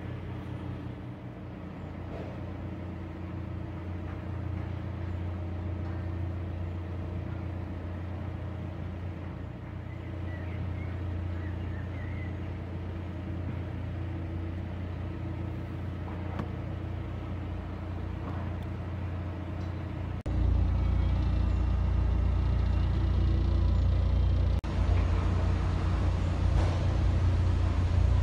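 Narrowboat's inboard diesel engine running steadily at cruising speed, a low even hum. About twenty seconds in, the sound cuts abruptly to a louder, deeper rumble.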